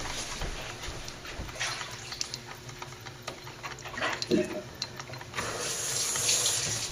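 Mr. Coffee 4-cup drip coffee maker brewing: a steady low gurgle with a few light clicks, and a hiss of steam that builds near the end.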